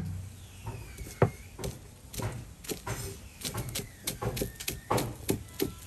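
Large knife chopping green vegetable stalks on a thick wooden chopping board: irregular sharp knocks of the blade striking the wood, about two to three a second.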